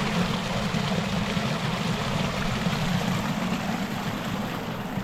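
Steady rushing of a creek running high after heavy rain.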